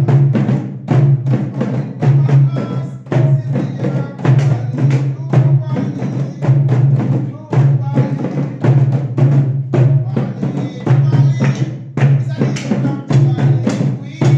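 Music with a heavy bass line and a steady percussive beat.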